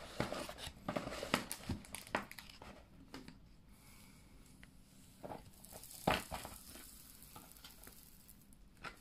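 Plastic cover film on a diamond painting canvas crinkling and rustling as it is handled, in irregular bursts that thin out after about three seconds, with a sharper crackle about six seconds in.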